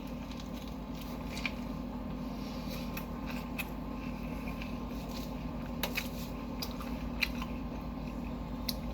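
Close-up chewing and biting of a Subway sub sandwich, with scattered small crunches and wet mouth clicks over a steady low hum.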